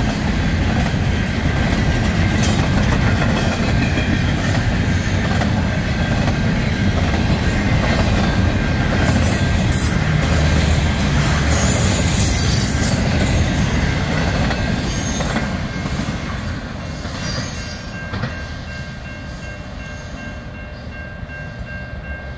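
Double-stack container well cars of a freight train rolling past close by: a loud steady rumble and rattle of steel wheels on rail. It fades over the last several seconds as the end of the train draws away, leaving a thin steady high tone.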